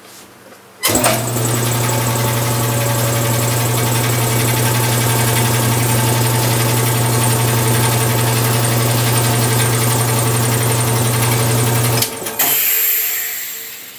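Old Speedaire two-stage air compressor's 2 hp capacitor-start motor starting at once when switched on, then running the pump steadily with a strong hum; the start shows that the new paralleled start capacitors work. After it is switched off, about twelve seconds in, a hiss fades away over a second or so.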